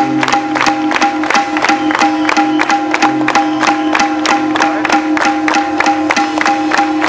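Live instrumental music: steady held notes over a fast, even percussive beat.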